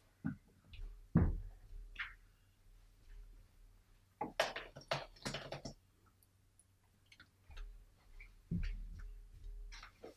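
Scattered light knocks, taps and rustles of a person handling things at a desk, then getting up and moving away, with a low rumble of movement in the room.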